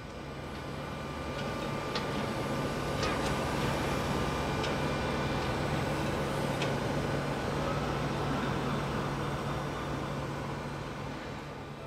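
Hitachi tracked excavator's diesel engine running steadily with a low hum, growing a little louder about two seconds in and easing near the end, with a few faint light clicks.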